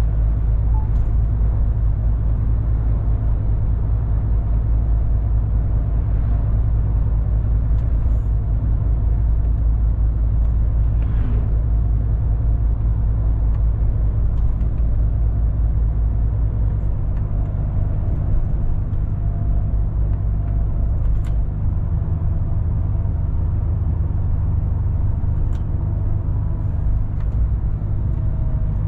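MAN TGX 18.460 truck's 12.4-litre straight-six diesel running steadily on the move, a loud, deep drone mixed with road and tyre noise.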